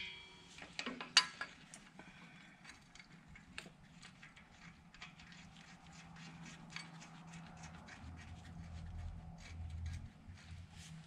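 Light clicks and clinks of metal tools and parts being handled, the sharpest knock about a second in, then fainter scattered ticks. A faint low steady hum builds in the second half.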